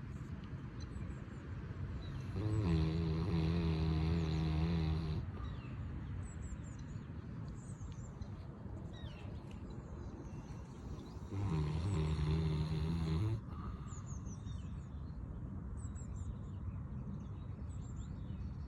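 Caucasian Shepherd dog snoring in its sleep: two long, loud snores with a steady buzzing pitch, the first about two and a half seconds in and the second about eleven seconds in, each lasting two to three seconds.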